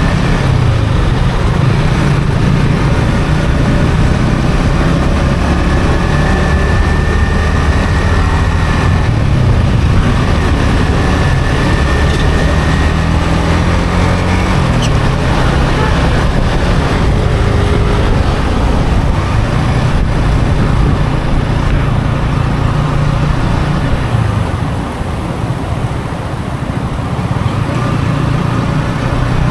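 Yamaha XSR155's single-cylinder engine running through its stock exhaust on the move, its note rising and falling with the throttle and gear changes. The engine eases off and quietens about three-quarters of the way through, then picks up again near the end, over a steady rush of wind and road noise.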